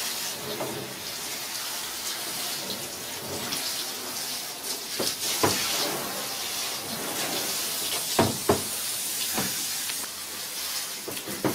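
Handheld shower head spraying water onto a dog in a bathtub, a steady hiss as the shampoo is rinsed out of its coat. A few short knocks break in, two of them close together past the middle.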